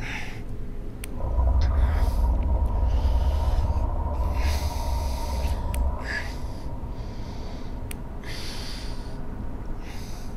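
A man breathing hard in pain, ragged breaths coming about every two seconds. Under the first half a low rumbling drone with a steady hum starts about a second in and fades near six seconds, with a few faint clicks.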